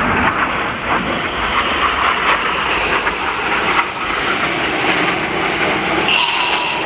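Jet noise from the Red Arrows' BAE Hawk jets flying past in a nine-aircraft formation, a steady, rushing sound with no breaks.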